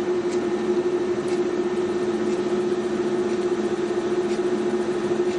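Steady mechanical hum with one constant mid-pitched tone running under it.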